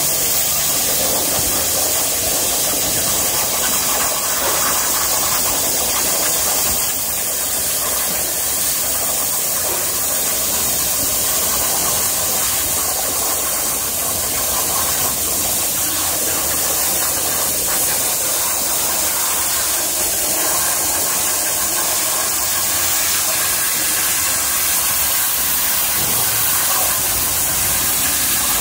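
Torch of a CNC gantry cutting machine cutting through steel plate: a loud, steady hiss with a lower machine hum under it.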